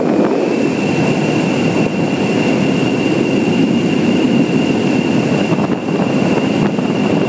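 Kawasaki KLX250S's single-cylinder four-stroke engine running at a steady cruise with wind noise on a helmet-mounted microphone. A steady high whine runs over the top.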